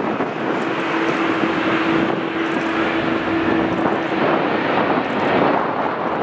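Jet engines of a KLM Boeing 787 (GE GEnx-1B turbofans) on final approach, a steady roar of engine and air noise as the airliner passes close overhead. A steady hum-like tone is held over it for about four seconds in the middle.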